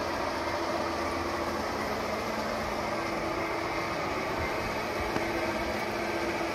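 G-scale model diesel locomotive running, its onboard sound system playing a steady diesel engine rumble, with the train's wheels on the track.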